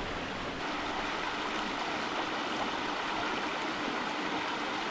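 Steady rush of a creek's cascading water, an even, unbroken hiss.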